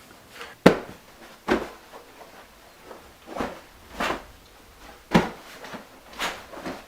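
A series of six sharp knocks or clacks at irregular intervals, the first the loudest.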